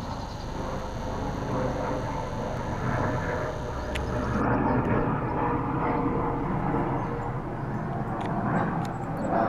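Distant Eurocopter AS365 Dauphin helicopter flying past, a steady rotor and turbine sound that swells slightly around the middle.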